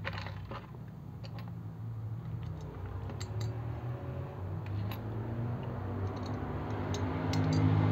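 Scattered small clicks and taps of metal parts being handled, as fingers fit an amplifier IC into a car head unit's metal heatsink. Under them runs a steady low hum that grows louder near the end.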